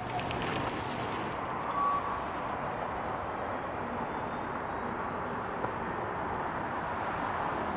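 Steady road traffic on a busy city street: an even wash of passing cars and tyres with no single vehicle standing out.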